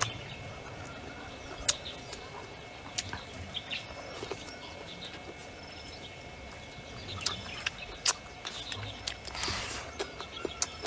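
Birds chirping over steady outdoor background noise, with several sharp clicks or taps.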